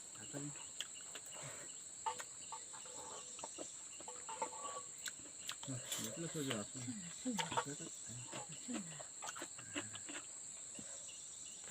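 Insects chirring in a steady high-pitched drone, with faint voices talking partway through and a few light clicks.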